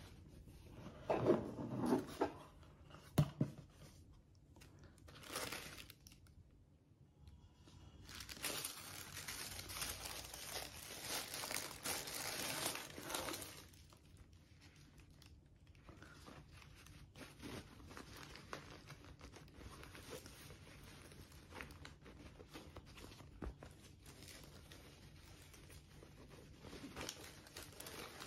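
Unboxing handling noises: a cardboard gift box being opened, with a few knocks and bumps in the first few seconds. This is followed by about five seconds of loud crinkling and rustling of the wrapping, then softer rustling of a fabric dust bag as a handbag is slid out of it.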